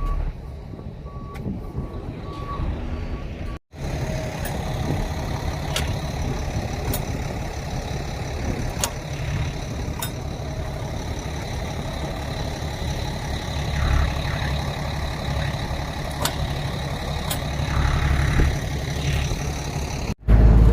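Heavy truck engines running, with a vehicle's reversing alarm beeping at an even pace in the first few seconds. The sound cuts out abruptly twice.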